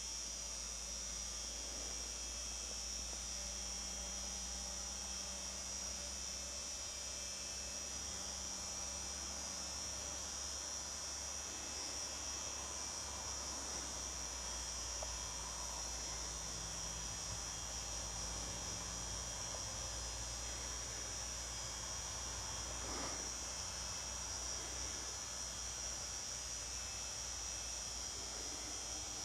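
Steady high-pitched chorus of crickets, with a low hum beneath it.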